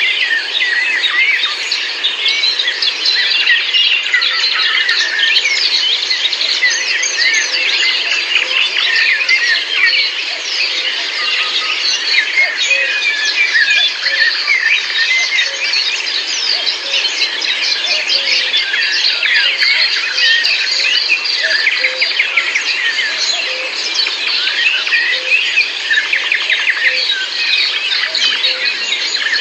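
A dense chorus of many small birds chirping and singing at once, countless short overlapping calls without a break, over a steady background hiss.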